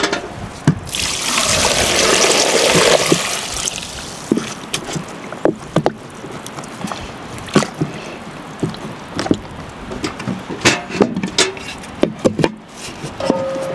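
Water pouring and splashing for a couple of seconds, then scattered knocks and clinks of pots and utensils being handled.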